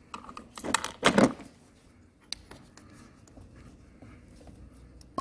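Clatter and clicks of small metal parts and hand tools as a fuel injector is worked free of a scooter's intake. The clatter is loudest about a second in, and there is a single click a little after two seconds.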